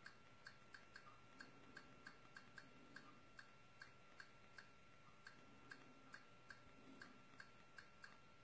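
Faint, regular clicks, about two to three a second, each one stepping a TV media-library menu along by one item as it is scrolled through. A faint steady high whine lies under them.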